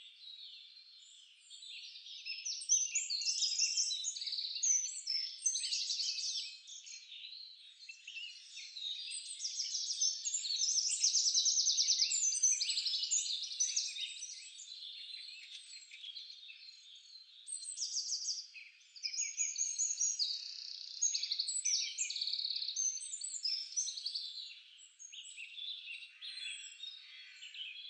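A chorus of many birds chirping and trilling together: dense, overlapping high calls, with short downward-sliding notes and fast trills, swelling louder and softer.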